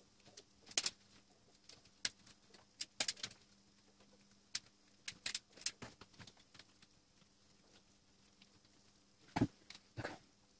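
Wires and hand tools being worked: scattered sharp clicks and snaps, with a heavier knock about nine seconds in.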